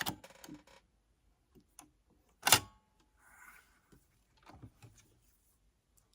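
Small clicks and handling of sewing tools and fabric at a sewing machine, with one much louder metallic clack that rings briefly about two and a half seconds in, and a short rustle just after.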